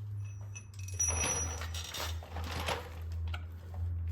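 Metal parts and tools clinking, with a short ringing of struck metal in the first second or so, then scraping and rattling, over a steady low hum.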